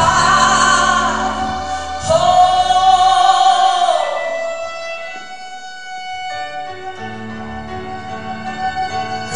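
Live orchestra with bowed strings and a female singer, playing long held notes. The full sound thins out after about four seconds to quiet sustained string chords, and the low strings come back in around seven seconds in.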